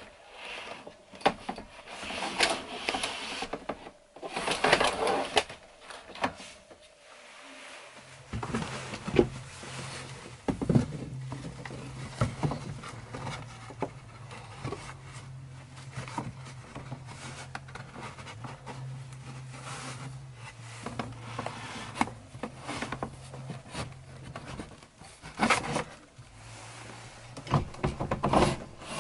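Hands fitting a blind into wooden side channels at a van window: wood rubbing and scraping, with scattered short knocks and clicks. A faint steady low hum joins about a third of the way in.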